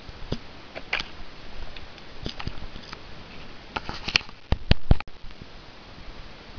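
Irregular clicks and knocks of handheld walking on loose scree: boots on stones and the camera being handled, with a louder cluster of knocks about four and a half seconds in that cuts off abruptly.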